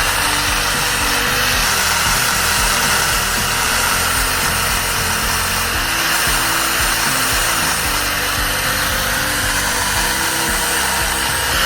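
A power tool running steadily, a continuous noise with no breaks, under background music.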